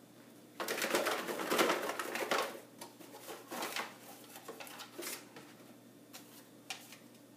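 Paper team cards sliding and rustling inside a cardboard 12-pack beer case as it is shaken, then softer rustling and light clicks as a hand rummages in to draw one card.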